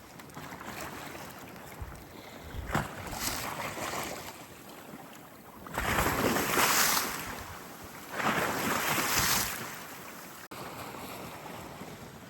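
Sea waves surging and washing in twice, about six and eight seconds in, with wind buffeting the microphone.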